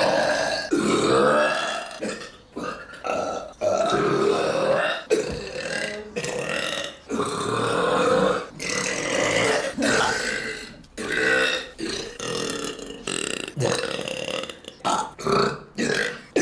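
A woman belching over and over, a long run of loud burps with short gaps between them, some drawn out for a second or more.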